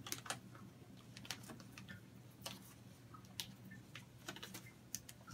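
Faint, irregular crinkles and clicks of a thin transparent plastic film being handled as its liner tab is peeled off.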